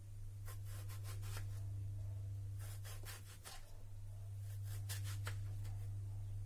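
Kitchen knife slicing through long green brinjal and tapping the plastic cutting board, in three short runs of quick cuts. A steady low hum runs underneath.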